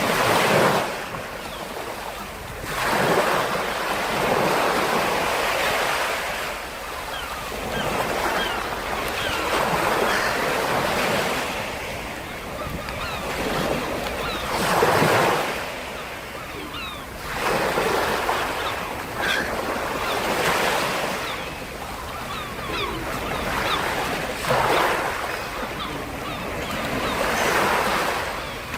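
Sea waves breaking on the shore, a rushing surge that swells and falls back every few seconds.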